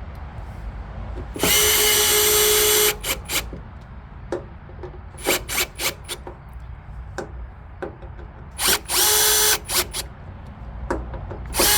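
Power drill driving screws to fasten a taillight housing: two runs of a second or so each, about a second and a half in and again near nine seconds, and a third starting at the very end. Sharp clicks and knocks come in between as the screws and tool are handled.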